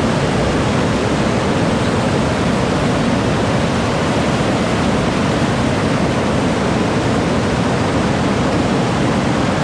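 Loud, steady rush of a large waterfall, the Nzoia River's water pouring down over the falls.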